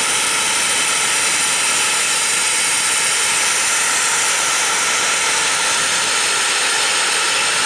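A Venturi vacuum valve runs with a steady, loud rushing hiss of air. It is drawing the air out from behind a tote liner, so the liner is pulled out against the tank's sidewalls.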